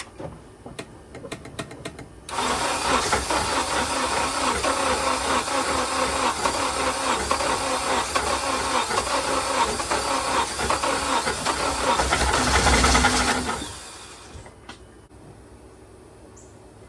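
Start attempt on a 7th-gen Honda Accord. A few clicks, then about eleven seconds of steady engine noise that swells briefly near the end and cuts off fairly quickly.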